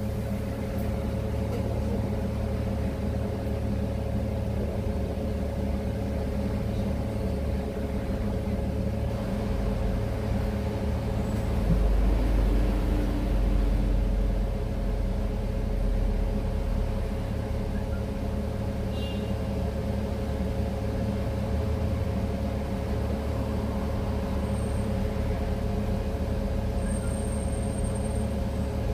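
City bus running, heard from inside the cabin: a steady low rumble with a constant whine over it. About twelve seconds in, the rumble swells louder for a couple of seconds, then settles back.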